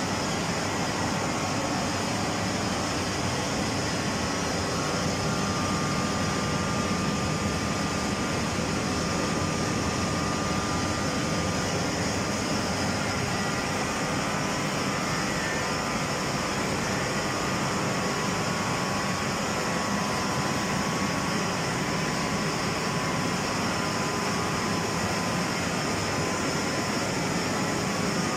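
Hydroelectric turbine and generator set running: a steady, unbroken machine drone with faint high whining tones over it.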